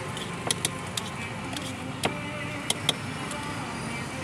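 A metal spoon clinking against a steel tumbler as puffed rice is stirred and tossed inside it: about six sharp metallic clinks, in two loose clusters, over a steady hum of street noise.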